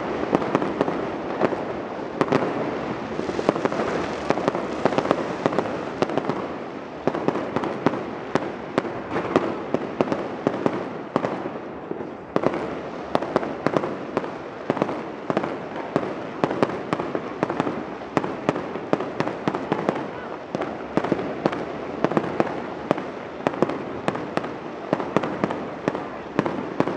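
Fireworks and firecrackers going off all around in a dense, continuous barrage of sharp cracks and bangs, many per second, over a constant crackling rumble.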